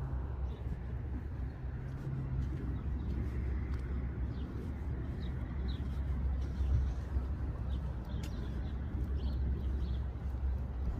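Short, faint bird chirps scattered over a steady low rumble.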